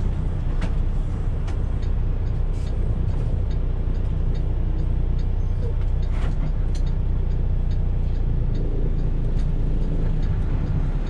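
Semi truck's diesel engine running steadily, heard from inside the cab, with a few short clicks and rattles here and there.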